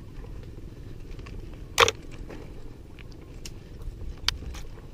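Bicycle riding over a rough, rocky dirt path: a steady low rumble of the tyres on the ground, with sharp rattling clicks from the bike, the loudest about two seconds in and a few more near the end.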